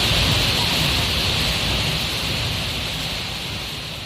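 Steady rushing noise of a waterfall, fading out gradually over the second half.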